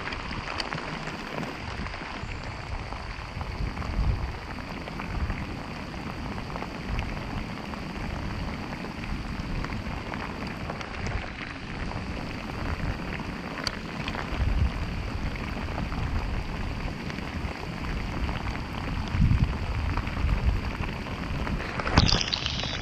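Steady rain pattering on the water, with low gusts of wind buffeting the microphone now and then.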